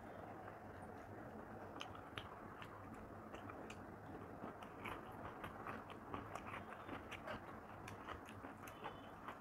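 Close-miked chewing of a mouthful of rice and mutton curry eaten by hand, with many small wet mouth clicks and smacks scattered throughout.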